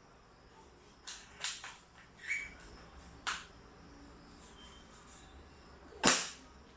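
Spring-powered airsoft rifle with a Rapex 3J spring. Several clicks and knocks come in the first few seconds, then one sharp shot about six seconds in, the loudest sound, trailing off briefly.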